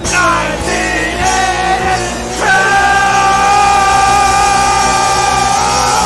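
Punk rock band playing loud, with shouted vocals. The full band comes in right at the start, and a long held note rings from about two and a half seconds in.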